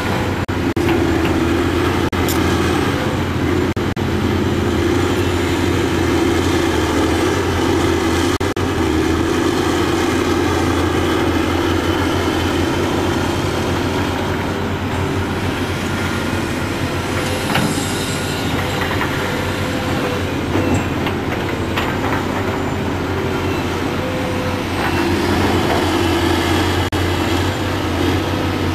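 Heavy diesel engines of a tracked excavator and a dump truck running steadily under load while soil is dug and loaded, with an occasional sharp metallic clank.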